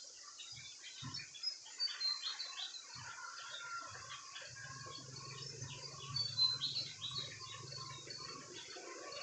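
A flock of chickens calling: many short, overlapping chirps and cheeps, with a low steady hum through the middle few seconds.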